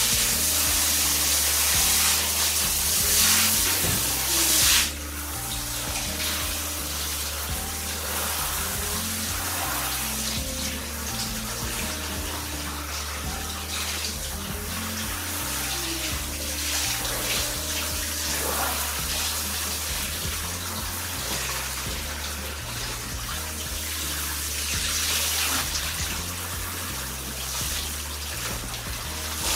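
Water from a handheld shower head spraying over hair into a bathtub, loudest for the first five seconds and then softer. Background music plays throughout.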